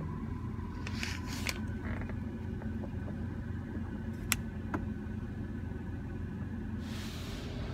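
Touchless car wash heard from inside the car's cabin: a steady low rumble with a few sharp ticks. Near the end a hiss swells up as the high-pressure water spray sweeps over the car.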